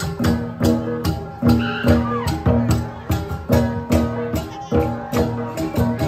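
Central Highlands gong ensemble (cồng chiêng) playing: a line of hand-held bronze gongs struck in a quick, steady interlocking rhythm, the strikes ringing on in overlapping pitched tones.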